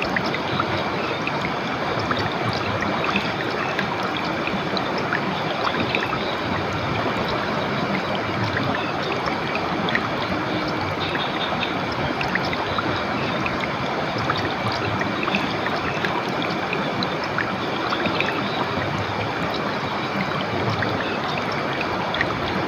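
A river stream flowing steadily: an even rush of running water, with small ticks of splashing throughout.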